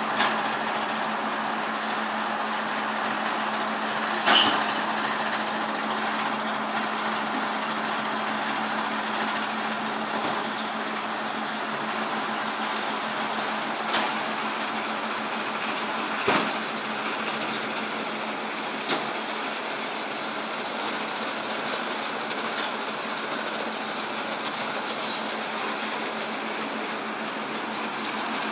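Hay-unloading machinery running steadily, an even rushing noise over a constant low hum. A few short sharp knocks break through, the loudest about four seconds in.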